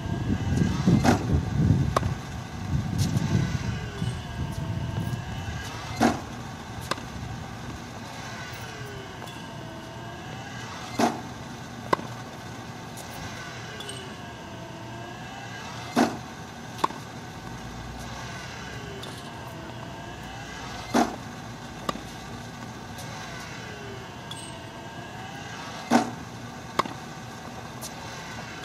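Tennis balls being hit in a steady drill: five pairs of sharp pops about five seconds apart, the second pop of each pair coming about a second after the first. A low rumble fills the first few seconds.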